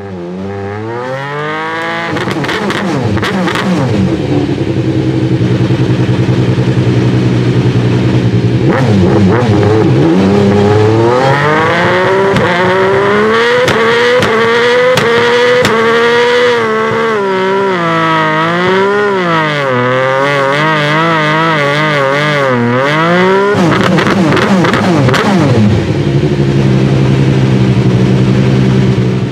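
Alfa Romeo 155 V6 TI race car's V6 engine, stationary. It comes in high and settles to a steady idle within about two seconds. From about eight seconds in it is revved up and down again and again, then drops back to idle a few seconds before the end.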